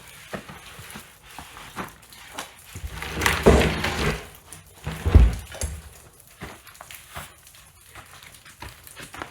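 A heavy deck made of two sheets of 3/4-inch plywood glued together is handled: scattered knocks and steps, a stretch of scraping and shuffling about three seconds in, then a loud low thump about five seconds in.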